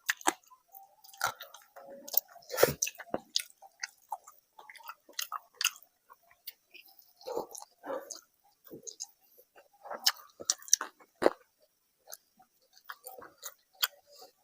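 Close-miked chewing of a rice-and-curry meal, with irregular wet clicks and smacks of the mouth.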